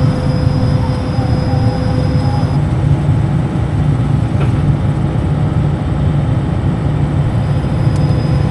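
Diesel engine of a large farm machine running under steady load while driving, a constant low drone with a thin steady whine that drops out about two and a half seconds in.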